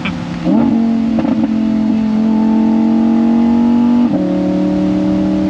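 Audi R8's V10 engine pulling through a valved ASG exhaust with the valves open. The note steps up about half a second in, climbs steadily under acceleration, then drops with an upshift about four seconds in.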